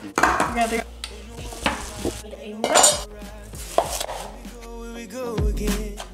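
Kitchen clatter of dishes and utensils being handled on a counter, with several sharp knocks, the loudest near the start and about three seconds in. A brief pitched tone that bends downward is heard about five seconds in.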